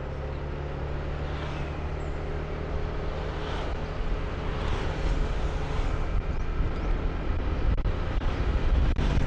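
A motorbike running under way, heard from the rider's seat, with steady low engine and road noise that grows gradually louder toward the end.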